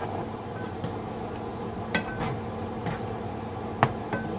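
Steady humming drone of a loud kitchen fan, with a utensil clinking twice against the skillet, about two seconds in and near the end.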